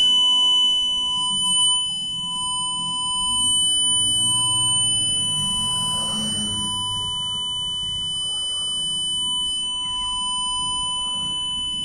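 Home security system's medical alarm sounding: one steady, high-pitched electronic tone held without a break, really loud.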